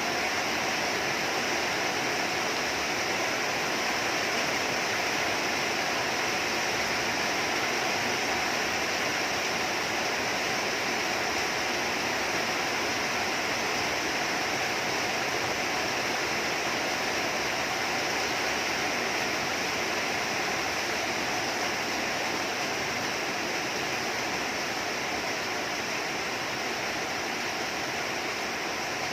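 Heavy rain falling, a steady hiss that eases slightly near the end.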